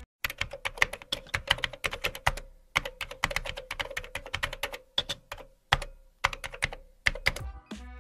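Computer keyboard typing: rapid runs of key clicks with short pauses between words. Electronic music starts near the end.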